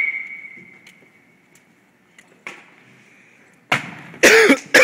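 A bat's ring fades out after a ball is struck just before, then another swing and contact comes about three and a half seconds in. A couple of loud, short sounds follow near the end.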